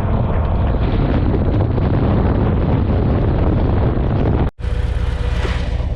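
Heavy wind noise on the microphone over a Harley-Davidson motorcycle's engine running at road speed. An abrupt cut about four and a half seconds in, after which the engine runs on steadily with much less wind.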